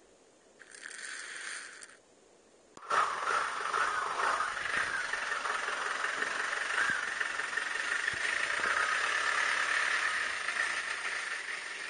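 A short rustle, then, about three seconds in, the steady running noise of a yellow four-wheel-drive jeep heard close to its front, with light rattles.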